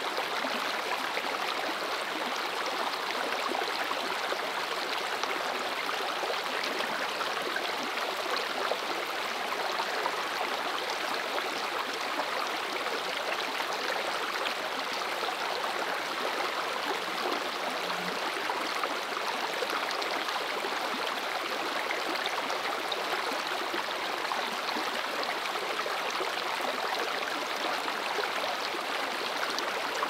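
Creek running high over its bed: the steady, even white noise of flowing water, with no changes or separate events.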